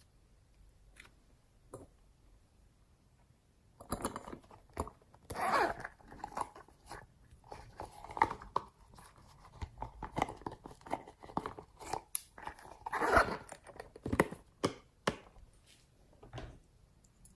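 Slime being squeezed and stretched by hand, making irregular squishes and crackles that begin about four seconds in.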